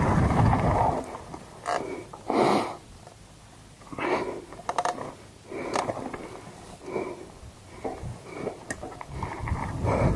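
Mountain bike rolling down a loose dirt-and-gravel trail: wind buffets the microphone for about the first second, then dies away. After that come short scraping and rasping noises from the tyres and brakes, roughly once a second, some with a faint squeal.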